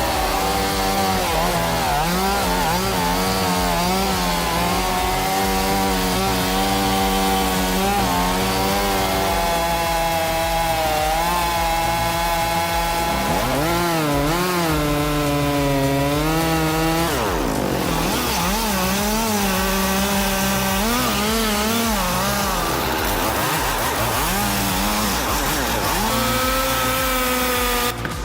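Chainsaw at high revs cutting into a large cedar trunk, its pitch sagging and recovering over and over as the chain bogs in the cut. About two thirds of the way through it falls off sharply, then revs back up into the cut.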